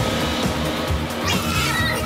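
Cartoon background music at a steady level. About two thirds of the way in, a high rising voice-like sound joins it.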